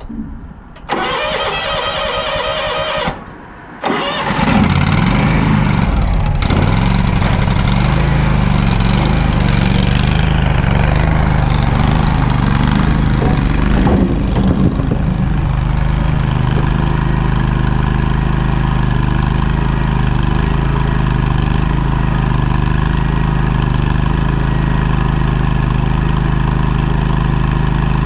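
An engine cranked by its electric starter with a whine for about two seconds, a short pause, then cranked again and catching, running up loud before settling into a steady run about halfway through.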